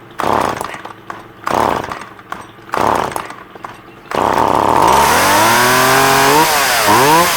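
Stihl MS170 two-stroke chainsaw being pull-started: three short bursts about a second apart, then it catches about four seconds in and runs, revved up with a couple of dips near the end. It had flooded from being choked while hot, which the owner blames for the hard start.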